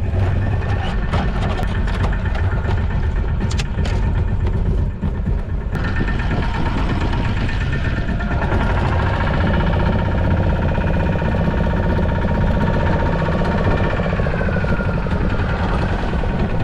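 Fishing boat's engine running steadily with a low rumble. In the first few seconds there are scattered sharp taps from a fish flapping in a plastic tub.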